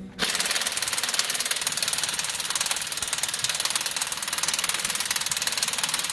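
Impact wrench hammering rapidly and steadily, running a bolt in. It starts just after the beginning and cuts off abruptly at the end.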